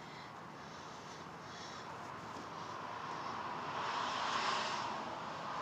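Noise of a passing vehicle that slowly builds to a peak about four and a half seconds in, then fades.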